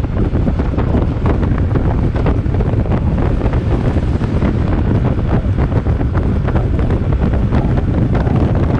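Loud, steady wind buffeting on the microphone, a low rumbling rush with rapid flutter.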